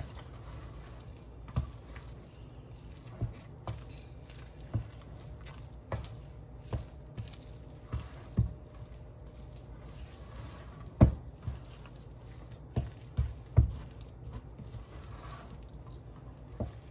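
A spoon stirring thick, sticky brioche dough in a stainless steel bowl: wet squishing with irregular knocks and thumps, roughly one a second, the loudest a little past the middle.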